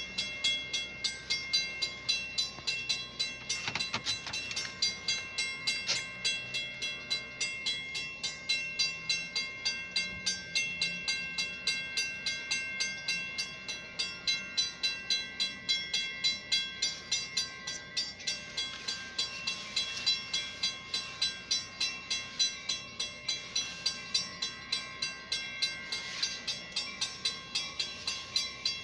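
Railroad grade-crossing warning bell ringing in rapid, evenly spaced strikes, the signal that a train is approaching while the gates are down.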